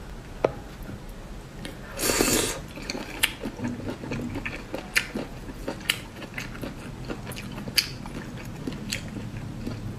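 Close-miked eating of spicy snails: sharp clicks of shells and a toothpick, and chewing, with a loud half-second slurp about two seconds in.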